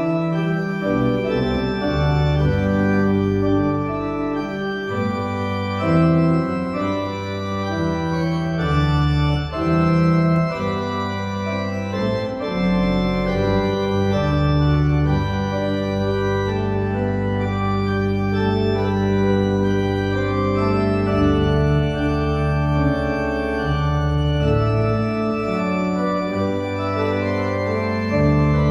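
Church pipe organ playing sustained chords over held low bass notes, the harmony changing every second or so.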